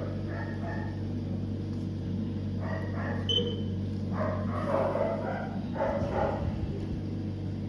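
A dog barking several times in short muffled bouts, over a steady low electrical hum.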